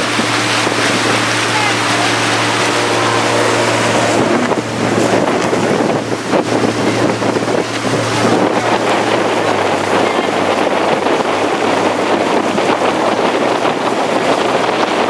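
Motorboat under way: a steady low engine hum beneath loud rushing wind and water, with wind buffeting the microphone.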